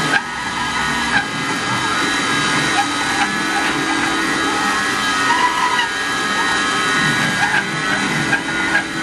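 CNC router spindle running steadily while a cutter mills a part, giving a constant whine of several steady high tones over cutting noise, with a few brief ticks.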